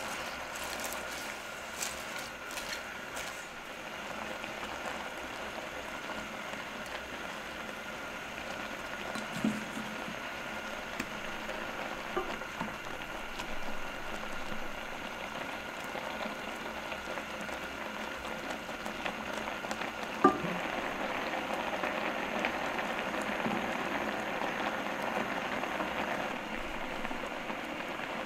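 Chili-paste stew simmering in a pot: steady bubbling and hissing with scattered small pops. There are a few light clicks in the first seconds, and a single sharp tick about twenty seconds in, after which the bubbling gets somewhat louder.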